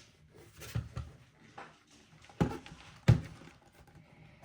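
A few hard plastic knocks and clicks as an attachment is worked off a Shark cordless handheld vacuum, the sharpest about three seconds in.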